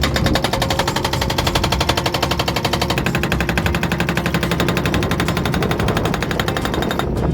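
Excavator-mounted hydraulic breaker hammering rock, a rapid, steady rattle of blows over the excavator's engine, breaking up boulders; it stops shortly before the end.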